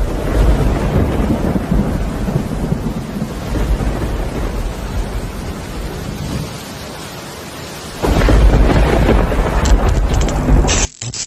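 Steady rushing, hissing noise over a low rumble, like rain with thunder, growing louder about eight seconds in and cutting off abruptly near the end.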